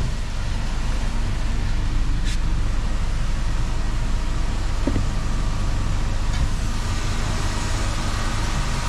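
Steady low hum of a car engine idling, with a single click about two seconds in.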